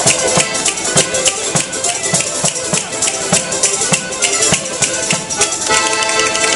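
Live folk music played in the street: a fast, even percussion beat with a jingling, rattling edge under a melody, turning to held notes near the end.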